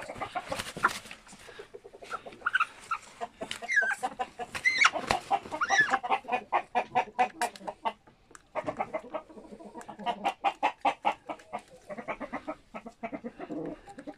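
Chickens clucking in quick runs of short clucks, with a few higher, bending calls about four to six seconds in.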